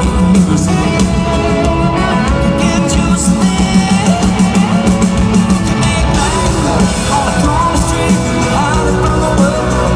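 Recorded country-pop song: a full band with guitar and drum kit playing steadily under a male singing voice.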